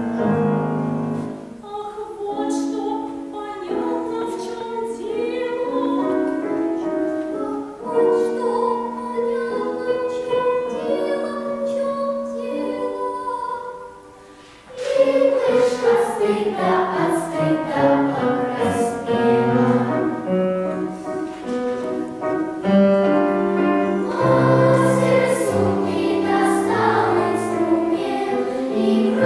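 Children's choir singing with piano accompaniment. About halfway through the music drops away briefly, then the choir comes back in louder.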